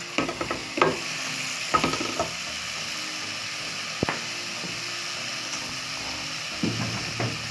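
Chopped spinach, onions and green peppers sizzling in oil in a metal pot, stirred with a wooden spoon that scrapes and knocks against the pot, with a sharp knock about four seconds in and more stirring near the end.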